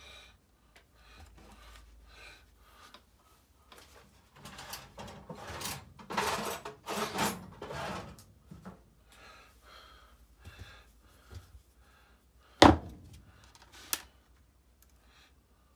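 Hands working on an RC car chassis at a workbench: a few seconds of rustling as a clear plastic sheet and the antenna tube are handled, then one sharp knock about two-thirds of the way through and a lighter one a second later.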